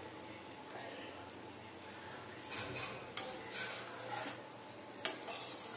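A metal spatula stirs thick kadi in a metal kadhai, scraping through it and knocking sharply against the pan a few times in the second half, over a faint steady hiss.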